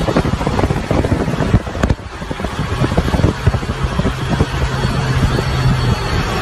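Vehicle noise at highway speed: a steady low engine drone under rushing road and wind noise, with the wind buffeting the microphone.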